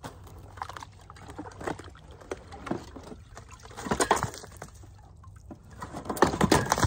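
A shovel scraping and digging into soil in a plastic wheelbarrow tub, the soil sliding and pouring, in several bursts. The loudest strokes come about four seconds in and again near the end.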